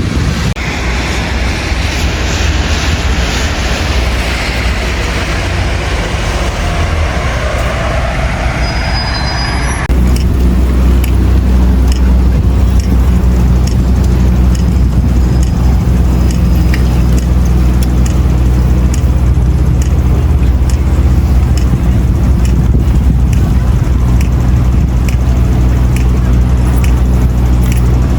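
Street noise with a vehicle passing, heard as a slowly sweeping rush during the first ten seconds. About ten seconds in it gives way suddenly to a louder, steady low rumble of wind on the microphone.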